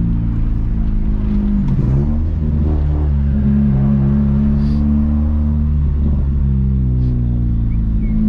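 VW Gol 1.0 8V four-cylinder engine with a sport exhaust, running steadily and loudly while driving, heard from inside the cabin. Its note dips and picks up again about two seconds in and again around six seconds.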